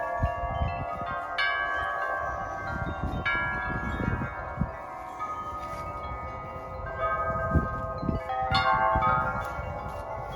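Several metal tube wind chimes ringing together in gusty wind, many overlapping long-sustained tones, with fresh clusters of strikes about a second and a half in, about three seconds in and near the end. Wind gusts rumble on the microphone underneath.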